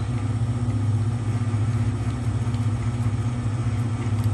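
Enco 2 HP milling and drilling machine's electric motor running, spindle turning, with a steady low hum that holds at an even level.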